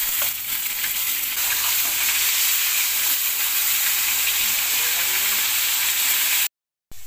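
Fish frying in hot oil in a wide pan: a steady sizzle of bubbling oil that stops suddenly near the end.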